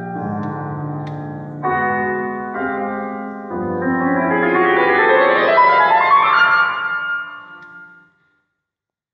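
Grand piano playing contemporary classical music. Sustained chords change every second or so, then about three and a half seconds in a fast rising run of notes climbs up the keyboard. The run rings out and fades away about eight seconds in.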